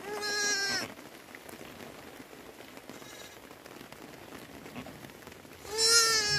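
A lamb bleating: two loud, quavering bleats, one at the start and one near the end, with a fainter one between. Beneath them is a steady patter of light rain.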